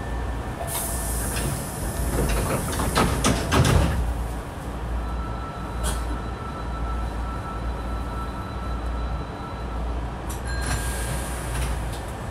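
Hankyu 5300 series electric train standing at a subway platform, its equipment giving a steady low hum. A sharp hiss of air comes about a second in and again near the end, and a burst of knocks and clatter, the loudest part, comes in the second to fourth seconds.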